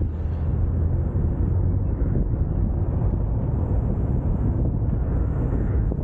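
Steady low rumble of a Fiat car driving along a road, heard from outside the car with wind buffeting the microphone.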